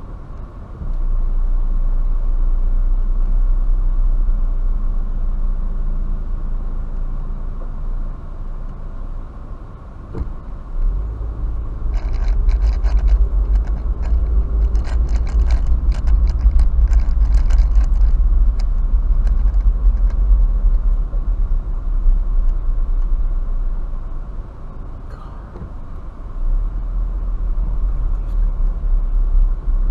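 Car driving slowly, heard from inside the cabin: a steady low rumble of the road and engine, with a few seconds of rapid clicking and rattling near the middle.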